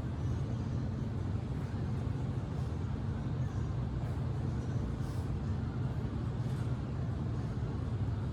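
A steady low rumble with a few faint, brief hisses over it.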